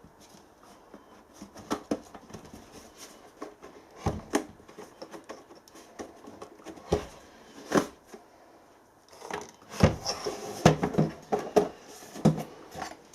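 Clicks, knocks and rattles of the casing of a diesel air heater being handled as its cover is lifted off, with a busier run of knocks and rattles in the last few seconds.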